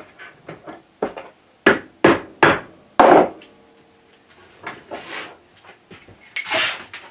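Hammer taps driving a steel spindle bearing the last bit onto a lathe spindle shaft held in a vise: light clicks, then about five sharp knocks between one and three seconds in. Softer handling and scraping noises follow.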